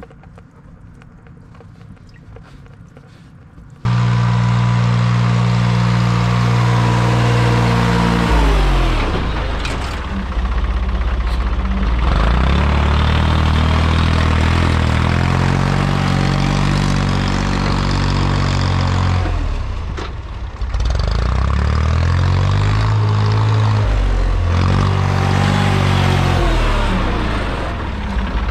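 A faint trickle of diesel running from the tank petcock into a jug, then, about four seconds in, a sudden cut to the Massey Ferguson MF30E industrial loader tractor's Perkins diesel engine running loud. Its engine speed sags and recovers several times as the loader pushes and levels dirt.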